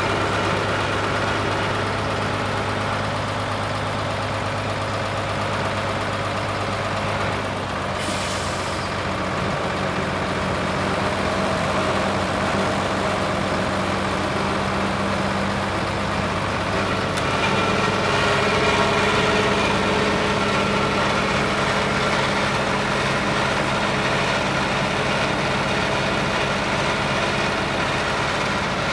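Scania 93M 210's 9-litre six-cylinder diesel running steadily, with a short hiss about eight seconds in.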